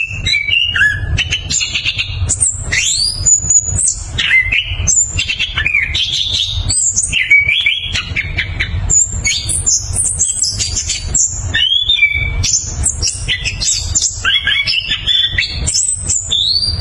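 Chestnut-capped thrush singing without a break: a fast, varied string of whistled phrases, quick rising and falling sweeps and rolling stuttered trills, over a steady low rumble.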